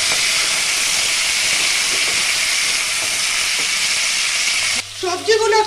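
Mixed vegetables frying in hot oil in a kadai, a steady loud sizzle that cuts off suddenly near the end.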